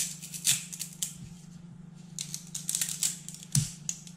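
3D-printed plastic support material cracking and snapping as it is pulled off a printed part by hand: irregular clusters of sharp crackling clicks, with the loudest snaps about half a second in and again near the end.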